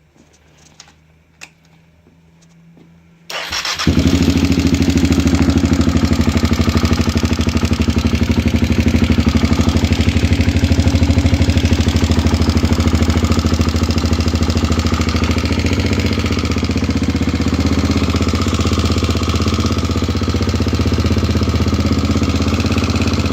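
Kawasaki KLX250's single-cylinder four-stroke engine starting after a few faint clicks, about three seconds in, then idling steadily with a knock that the owner puts down to a worn timing chain.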